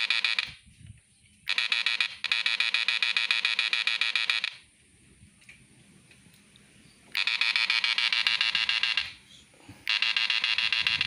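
Homemade battery-powered electric fishing machine (a three-transformer transistor inverter) buzzing with a loud, rapid pulsing as it drives two 1000-watt bulbs. It is switched on and off four times, each spell lasting one to three seconds.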